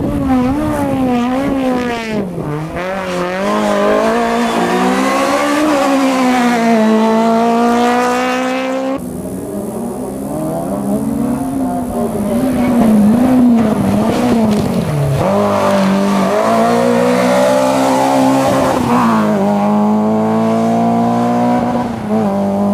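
Rally car engines at full throttle on a hill climb, the pitch climbing and dropping back over and over as the drivers work through the gears. The sound changes abruptly about nine seconds in, when a second car takes over.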